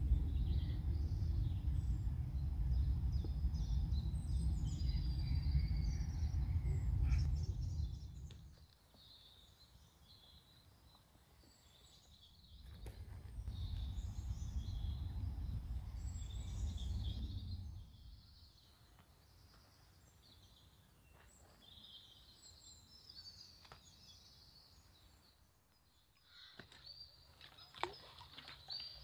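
Wind buffeting the microphone as a low rumble in two long gusts, the first stopping about a third of the way in. Small birds chirp throughout, and a few sharp clicks come near the end.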